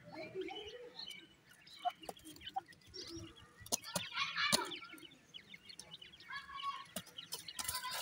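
Grey francolin chicks peeping and trilling in high chirps, with soft low clucks from the hen. Short sharp taps of pecking at the ground come throughout.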